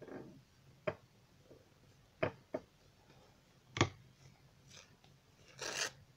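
Handling sounds of decoupage on a glass bottle: a few sharp light clicks of the brush and fingers against the glass, then near the end a short, crisp rustle of thin paper napkin.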